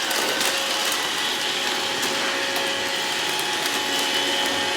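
iRobot Roomba robot vacuum running: a steady whirring hiss with scattered small ticks.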